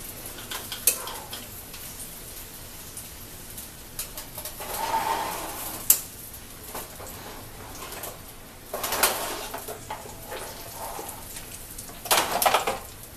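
Metal clinks and clatter as a turkey is taken out of an oven, ending in a disposable aluminium foil roasting pan with a wire rack rattling and crinkling as it is set down on the stovetop near the end.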